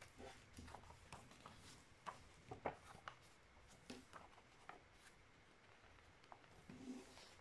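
Faint, scattered crinkles and taps of a sheet of paper being handled and creased while a paper plane is folded, the sharpest crackle just under three seconds in.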